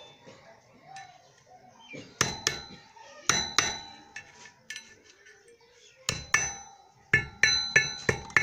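About ten sharp metal-on-metal clinks and knocks, several in quick pairs, each ringing briefly: steel tools and parts of a Honda CD70 motorcycle's rear sprocket hub being handled and knocked together.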